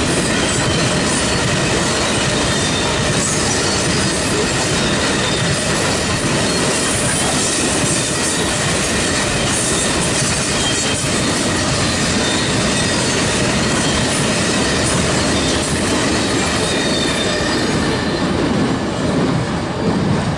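A freight train's cars rolling past at close range: a loud, steady rumble and hiss of steel wheels on the rails.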